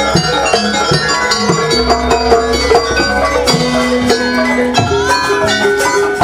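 Live jaranan music from a Javanese gamelan-style ensemble: ringing struck-metal notes and held melodic tones over a deep bass that comes and goes.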